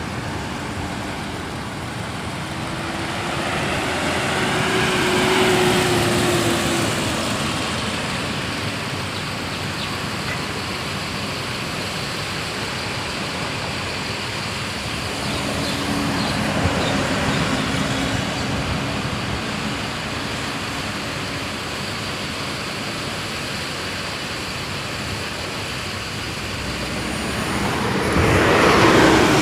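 Motor vehicles passing by over steady road noise. An engine note swells and fades three times: about five seconds in, around the middle, and loudest near the end.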